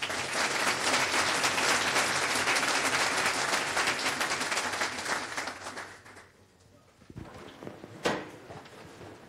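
Audience applauding after a talk, dying away about six seconds in. About eight seconds in there is a single short thump.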